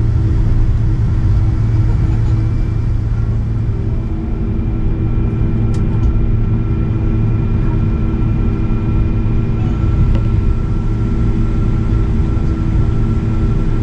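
Cabin noise inside a Boeing 777-200ER: the steady low rumble of the jet engines and rushing air, with a few steady whining tones above it.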